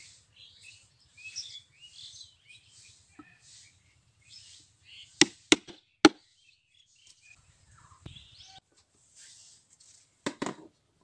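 Three sharp wooden knocks about five to six seconds in: a short bamboo tube struck down on a wooden board. A shorter clatter of knocks comes near the end, with small birds chirping in the background throughout.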